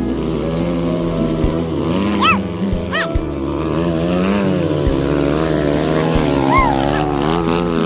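An off-road vehicle's engine revving under load, its pitch rising and falling over and over as it works its way along a difficult stretch.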